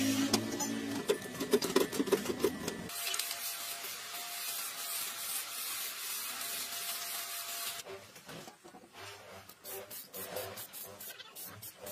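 A hand tool scrapes against the sheet-metal hopper of a grinding machine for about three seconds. Then an aerosol spray paint can sprays on it with a steady hiss for about five seconds, stopping abruptly. Quieter irregular knocks and rattles follow.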